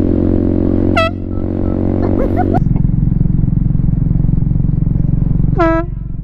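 Boat air horn mounted on a motorcycle blaring a steady, loud blast that cuts off suddenly about two and a half seconds in, leaving the small motorcycle engine running underneath. Two short high chirps sound over it, about one second and five and a half seconds in.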